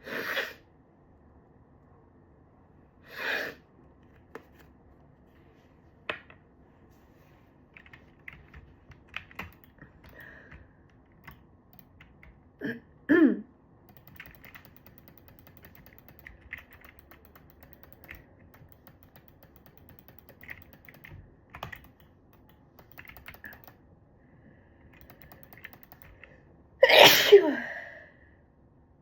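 Stifled sneezes brought on by chhinkni sneezing snuff. One comes right at the start, another about three seconds in, a quick double one around thirteen seconds, and the loudest and longest near the end, with faint short clicks and sniffs between.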